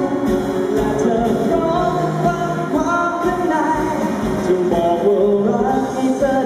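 A young man singing a Thai pop song into a microphone, with musical accompaniment and a steady beat.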